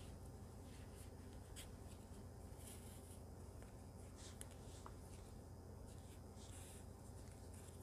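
Very faint rustling and scratching of a metal tapestry needle and thick yarn being drawn through a crocheted scarf, a few soft scrapes scattered through, over a low steady room hum.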